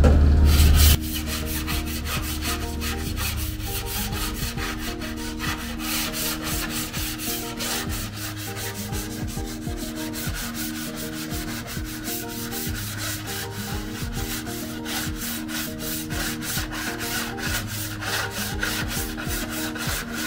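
Hand sanding on the steel body panel of a Honda Beat: a steady run of quick, even back-and-forth rubbing strokes. Soft background music with held notes plays underneath.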